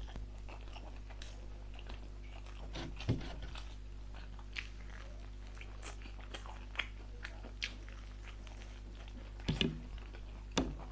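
A person chewing food close to the microphone, with short mouth clicks and smacks scattered throughout and a few louder bites about three seconds in and near the end, over a steady low hum.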